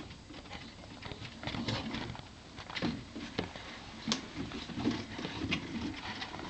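Dogs' claws clicking and paws scuffling irregularly on wooden deck boards during rough play, with a few sharper clicks standing out.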